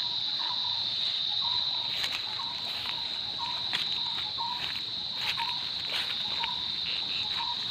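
Insects droning: a steady high-pitched buzz. A short chirp repeats about once a second over it, with a few faint clicks and rustles.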